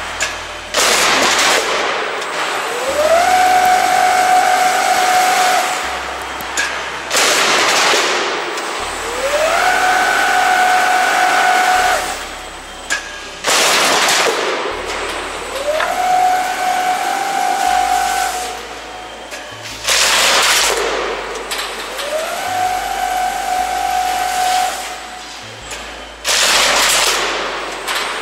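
Roll-forming line for profiled steel sheet working in repeating cycles about every six and a half seconds. Each cycle has a whine that rises in pitch and then holds steady while the sheet feeds through the forming rollers, followed by a loud hissing burst. Five bursts fall in the span, with background music underneath.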